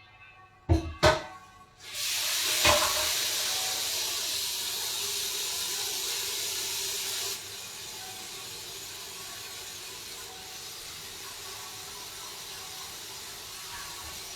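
Two sharp knocks, then a steady, loud hiss that drops suddenly in level about halfway through and carries on.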